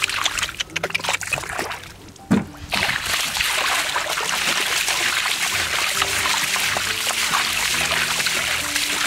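Hands scooping and splashing through shallow muddy water and wet mud, with a loud splash a little over two seconds in and then continuous spattering as mud and water are flung aside, over background music.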